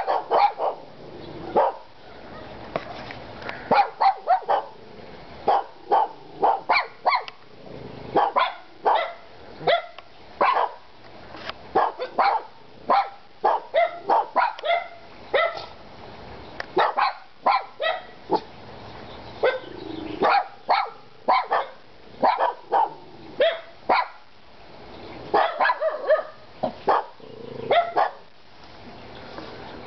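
Pet dogs barking over and over in short, sharp barks, often two or three in quick succession with brief pauses between.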